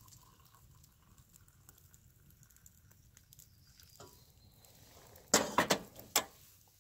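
Stainless steel kettle set back down on a camp stove's metal burner grate: a few sharp metal clanks a little past five seconds in, after a quiet stretch with one small click.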